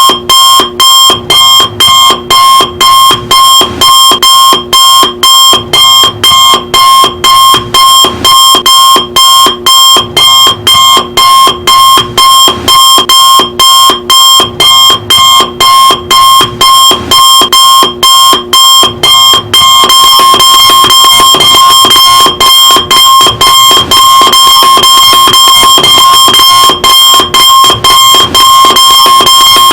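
Electronic alarm clock sounding a loud, high-pitched beeping at about two beeps a second. About two-thirds of the way through, it switches to an almost unbroken alarm tone with only occasional brief breaks.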